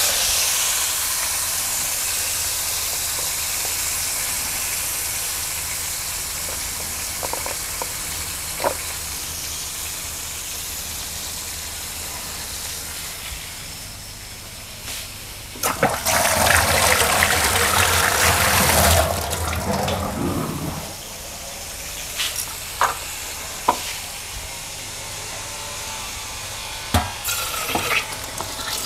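Flour-coated chicken breast sizzling as it pan-fries in oil, a steady hiss that slowly fades. About sixteen seconds in, a louder rushing noise lasts about five seconds, followed by a few light knocks.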